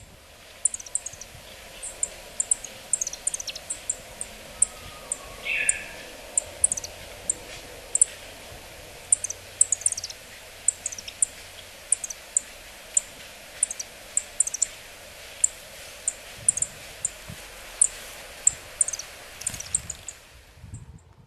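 Yellow-throated buntings calling: short, thin, very high notes slurring downward, about two a second and irregularly spaced. One lower, louder call comes about five seconds in.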